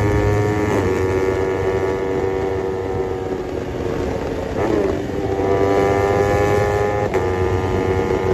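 BMW 1200 motorcycle engine running hard under acceleration, its note climbing slowly and dipping briefly three times, about one, five and seven seconds in.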